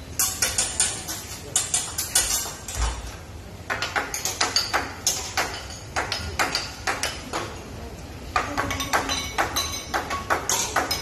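Metal spatulas and utensils clattering and rapping on a teppanyaki griddle: quick runs of sharp clicks, several a second, some with a short metallic ring, broken by brief pauses.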